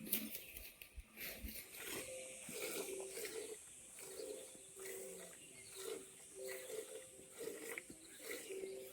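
Birds cooing faintly: short, steady low notes at two pitches, repeating every second or so, with scattered light clicks.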